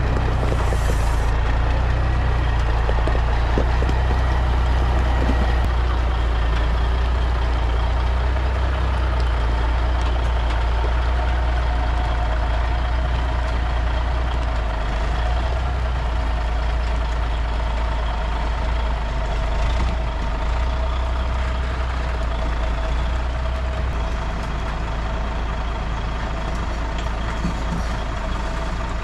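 Takeuchi TB2150 excavator's diesel engine running steadily with a strong low hum, easing slightly about three-quarters of the way through.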